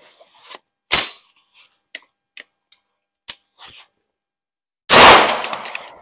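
Two gunshots: a sharp crack about a second in, and a louder one near the end that rings on for about a second under the covered firing line. A few light clicks come between them.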